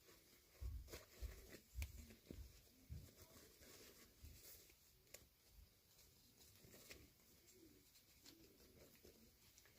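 Faint handling sounds of a toy unboxing: small plastic pieces and packaging being handled, with light clicks and rustling. A few soft low thumps come in the first three seconds.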